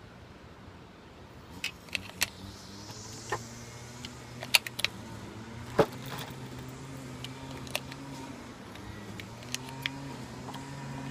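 A steady low motor hum, like a vehicle engine running, with a dozen or so sharp short clicks and taps scattered over it. The loudest clicks come about four and a half and six seconds in.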